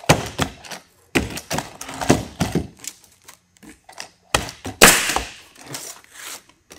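Pneumatic coil roofing nailer firing nails into asphalt shingles, amid clacks and knocks of the tool being set down and moved. The loudest shot, with a hiss of air, comes about five seconds in.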